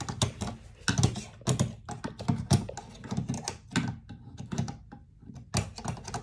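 Irregular plastic clicks and knocks, a few a second, as a hand fumbles a charger plug and its cable against the wall to plug it in, with a short lull near the end.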